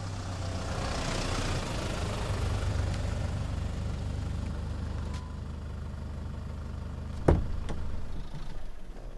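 A small truck's engine running at low revs close by as it pulls up and idles. A sharp clunk of its cab door opening comes about seven seconds in.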